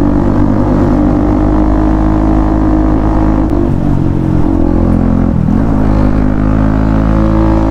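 Bajaj Pulsar NS200's 200 cc single-cylinder engine running through an aftermarket Akrapovic exhaust while riding, a loud, bassy exhaust note. The note dips twice in the middle and climbs again near the end.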